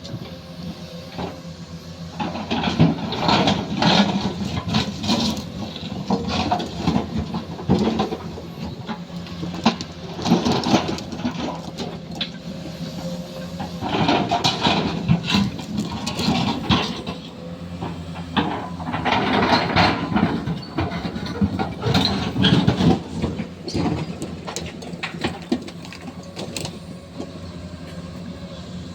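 Heavy equipment engine running steadily under repeated irregular metallic clanks, knocks and scraping from the machine at work.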